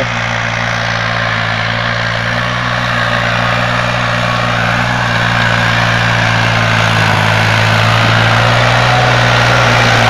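New Holland 3600-2 tractor's diesel engine running steadily as it works a tilled field, getting gradually louder as it comes closer.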